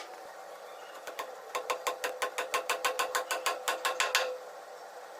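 Fast, even mechanical clicking of a hand tool, about seven clicks a second, lasting about three seconds and stopping suddenly.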